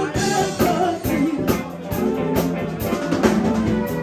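Live band playing: drum kit, bass, electric guitars and saxophone, with a woman singing at the front.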